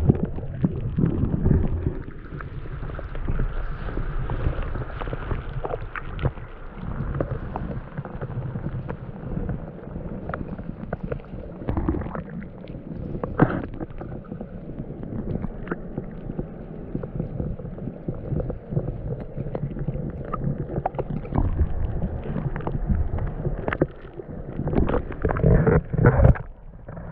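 Muffled gurgling and rumbling of river water heard through a submerged action camera, with scattered clicks and knocks. Near the end it turns to louder splashing as the camera comes up out of the water.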